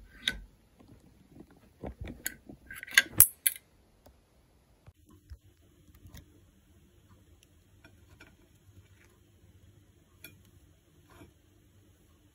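Household objects being handled: a run of sharp clicks and knocks, the loudest about three seconds in, then scattered faint taps over a low steady hum.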